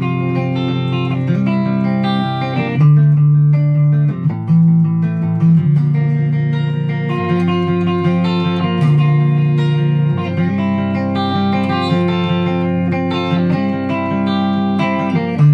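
ESP LTD EC-256 electric guitar being played: held notes and chords that change every second or two over a strong low note.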